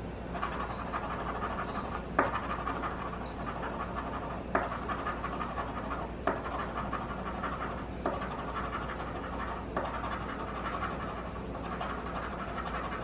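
Scratching the coating off an instant lottery scratch ticket: a steady scraping with a sharp tap every couple of seconds.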